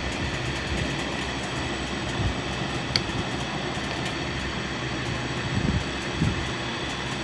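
Steady mechanical hum with a few soft knocks as hands and a screwdriver work on the pulley of a Juki buttonhole sewing machine, and one sharp metallic click about three seconds in.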